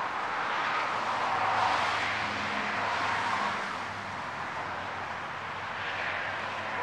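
Steady outdoor background noise, an even hiss with a faint low hum through the middle, like distant traffic.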